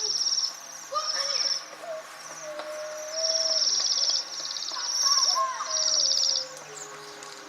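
A flock of small wintering songbirds giving high, buzzy trilled calls in about six bursts of half a second to a second each, some overlapping.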